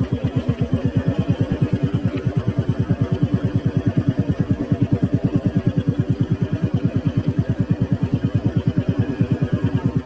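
Engine of the vehicle carrying the camera, chugging at low speed with very even pulses about eight or nine a second.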